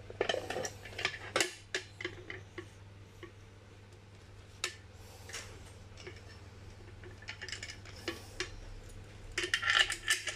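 Small metal parts clicking and clinking as a quick-release skewer is handled and fitted into a bicycle child seat's steel mounting bracket, in scattered taps with a busier run of clinking near the end.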